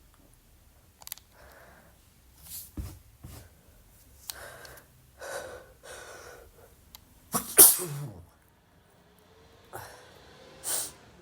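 A man sneezing: a series of short gasping in-breaths builds up, then one loud sneeze about two thirds of the way in, followed by a shorter breathy burst near the end.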